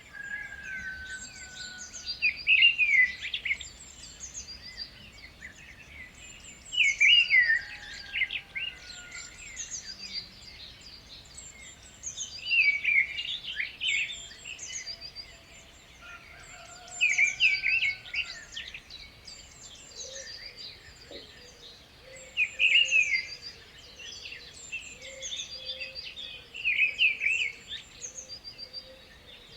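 Birdsong: a loud phrase of fast chirps repeated about every four to five seconds, with thinner high-pitched chirps in between.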